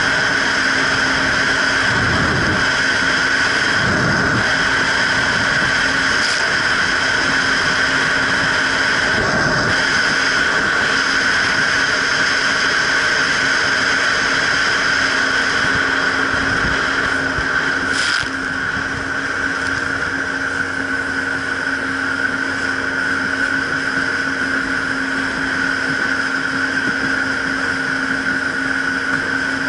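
Jet ski running at speed: a steady engine and jet-pump whine over the rush of water. The level eases slightly about two thirds of the way through.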